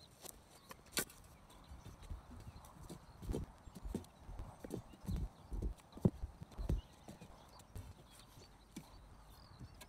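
Steel post rammer thudding into the backfill around a wooden strainer post, about seven dull blows a little over half a second apart from about three seconds in, packing the soil hard. A single sharp knock comes about a second in.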